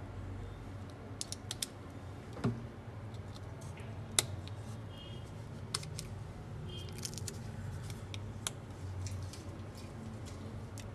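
Scattered small clicks and taps, some in quick clusters, from hands handling an opened Oppo F1s smartphone's board and battery, over a low steady hum.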